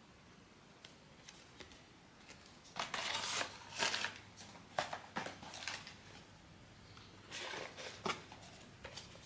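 Packaging from a blind-box figure being handled: short crinkling rustles and a few sharp clicks in three clusters, the loudest about three to four seconds in.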